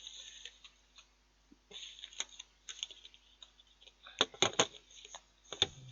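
Clicks, taps and light rustles of kitchen items being handled: a plastic margarine tub, its lid and a knife. A cluster of sharper clicks comes about four seconds in.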